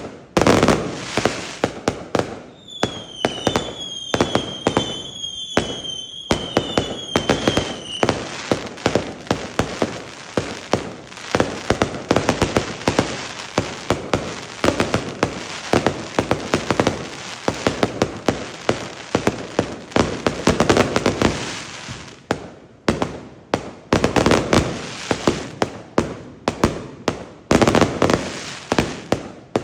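Fireworks going off in rapid succession, a dense run of bangs and crackles throughout. A series of shrill whistles repeats from about three to eight seconds in.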